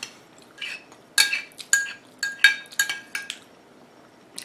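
Metal spoon clinking and scraping against a ceramic bowl while scooping up chowder: a quick run of ringing clinks in the middle, and one more near the end.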